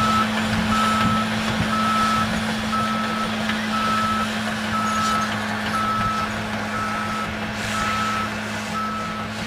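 Crawler bulldozer backing up while backfilling a pit: its reverse alarm beeps about once a second, each beep about half a second long, over the steady run of its diesel engine, fading slightly toward the end.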